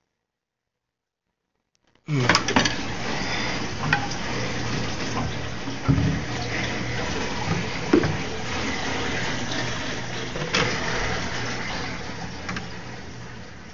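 Water splashing and running in a stingray tank, over a steady low hum, with a few sharp clinks and knocks. It starts abruptly about two seconds in and fades near the end.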